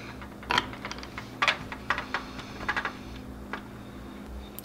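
About half a dozen irregular, light clicks and taps of small plastic objects being handled: a CA superglue bottle being capped and put down, and the plastic hull halves of a model kit being handled.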